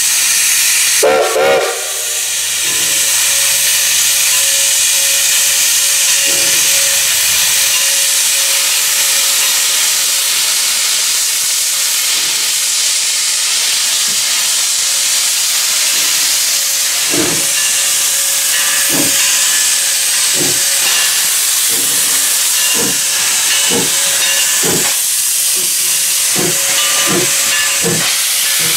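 1920-built 4-6-0 narrow-gauge steam locomotive starting a train: a loud, steady steam hiss with a short whistle blast about a second in. From about two-thirds of the way through, the exhaust chuffs begin, slow at first and quickening as the locomotive gets moving, with its cylinder cocks open and venting steam.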